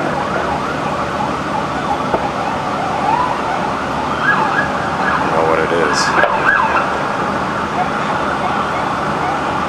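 Emergency vehicle sirens wailing over steady background noise, their rising and falling tones clearest in the middle.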